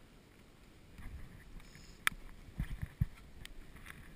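Handling and movement noise from an airsoft player in woodland: a sharp click about two seconds in, then a few low thuds and lighter clicks over a soft rustling background.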